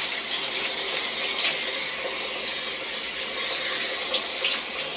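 Tap water running steadily while a dog is bathed, a constant hiss with a few small splashes.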